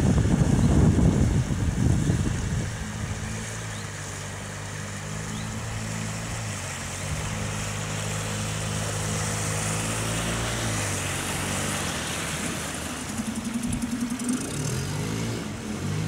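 Small outboard motor on an inflatable dinghy running steadily as the boat approaches and passes close by, its pitch dropping about eleven seconds in as it goes past. Wind buffets the microphone at the start.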